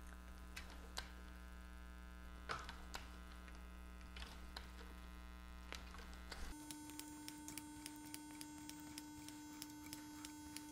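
Faint clicks and knocks of a cleaning rod being stroked back and forth through a Barrett MRAD rifle barrel, pushing a tight patch loaded with abrasive compound through the throat, over a steady electrical hum. About two-thirds of the way through the hum changes suddenly to a different, higher pitch.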